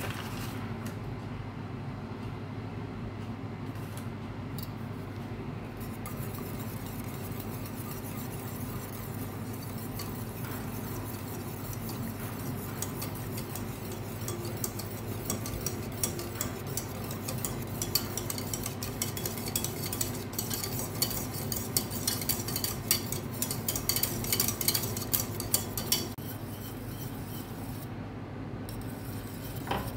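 Wire whisk beating a flour mixture in a stainless steel saucepan: a rapid clatter of wires against the pan starts about halfway through, grows louder and stops a few seconds before the end. A steady low hum runs underneath.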